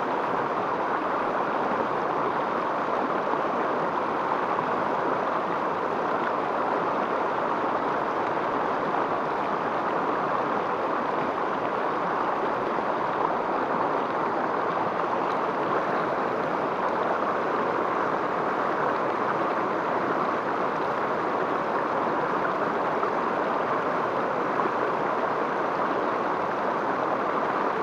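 River water rushing steadily over rocks in shallow rapids.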